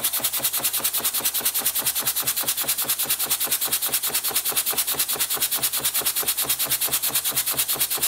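Single-cylinder model steam engine running fast and evenly on very low steam pressure, its exhaust chuffing about eight times a second with a steady hiss. A knocking runs with the beat, which the owner puts down to one of the main bearings that he could not tighten any more.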